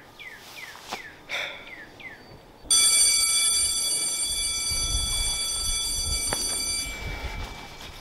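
A bird repeating short falling chirps, then, about a third of the way in, a loud, steady high-pitched ringing of several tones at once starts suddenly and holds for about four seconds, the loudest sound here. Low thuds of footsteps run under its second half.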